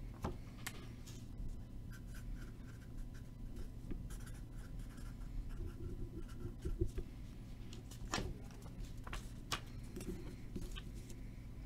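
Marker pen writing on a paper note: soft, scratchy pen strokes, with a few sharp clicks later on.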